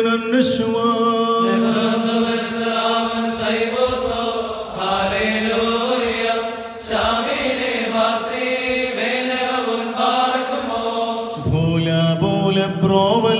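Syriac liturgical evening prayer chanted by several voices together, over a steady held note. The chant moves to a lower note near the end.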